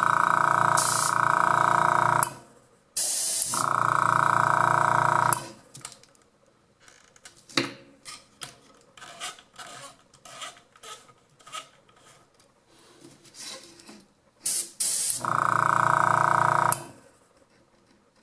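Avanti airbrush compressor running in three stretches of a steady hum, each two to three seconds long, and stopping in between. Short hisses of air come with some of the runs, and light clicks and rubbing fill the quiet gaps.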